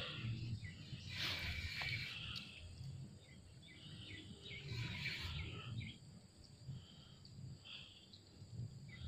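Birds chirping with short scattered calls over a steady low rumble.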